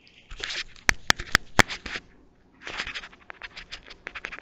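Close rustling and scratching, with four sharp clicks in quick succession about a second in.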